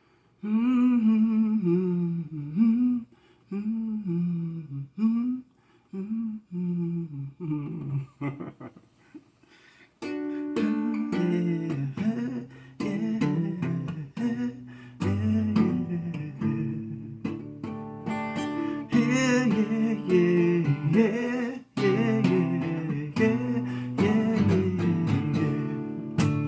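A solo voice hums a slow, wordless worship melody. About ten seconds in, an acoustic guitar starts strumming chords under it, and the humming carries on over the guitar.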